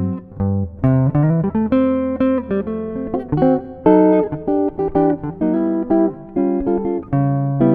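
Background music: guitar plucking a melody of separate notes with bass notes beneath.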